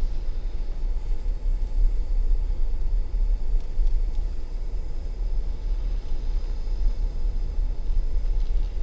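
Wind buffeting the microphone while riding an e-bike: a steady, gusty low rumble.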